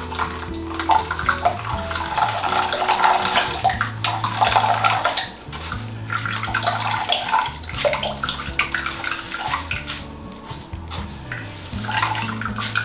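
Coconut milk pouring and splashing into a bowl as wet grated coconut is squeezed by hand through a mesh strainer. The splashing is heaviest over the first five seconds, thins out, and picks up again near the end.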